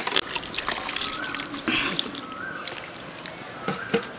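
Wooden spatula stirring cabbage and water in an aluminium karahi: wet sloshing and trickling with quick scrapes and clicks in the first two seconds, then quieter liquid sounds from the pan.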